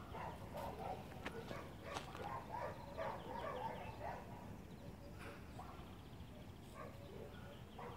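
Faint, short animal vocal sounds repeated in quick clusters, busiest in the first half, with scattered light clicks, as a dog and a cat meet nose to nose.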